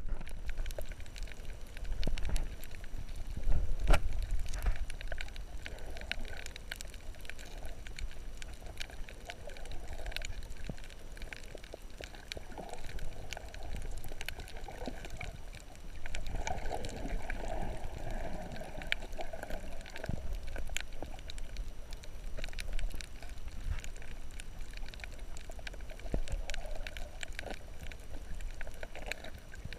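Muffled underwater sound picked up by a submerged camera over a coral reef: water sloshing and gurgling around it, with scattered sharp clicks and crackles throughout and a louder knock about four seconds in.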